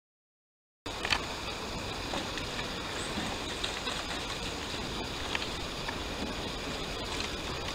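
Silence for about the first second, then riverside outdoor ambience starts suddenly: a steady hiss with a few faint clicks.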